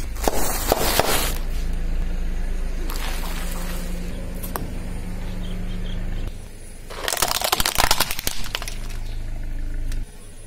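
Car tyre rolling over and crushing objects: a burst of crunching and cracking in about the first second, and another around seven to eight seconds. A car engine runs low and steady in between.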